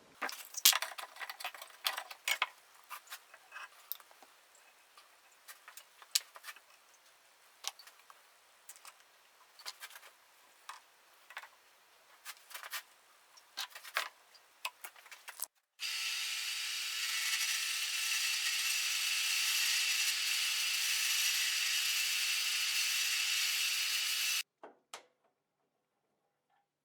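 Scattered clicks and knocks of workpieces and tools being handled, then, a little past halfway, a power tool starts abruptly, runs steadily for about eight seconds and cuts off suddenly.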